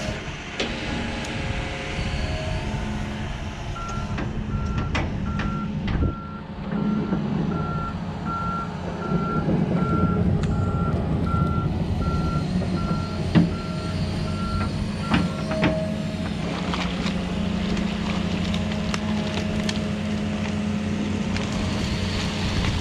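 Hydraulic excavator's diesel engine running steadily under load, with its warning beeper sounding about once a second for some twelve seconds from a few seconds in. Scattered knocks and cracks come from the bucket working into the sticks of a beaver dam.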